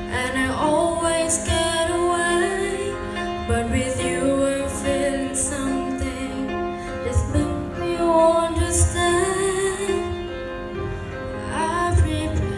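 A girl singing a slow ballad into a microphone with a grand piano accompanying her, her voice sliding between notes.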